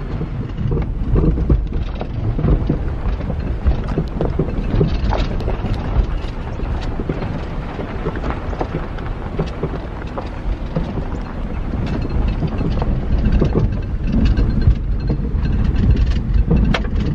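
Honda CR-V crawling over a rutted dirt track: a low, steady rumble of engine and tyres with a constant stream of knocks and rattles from the suspension and body as it pitches over the bumps.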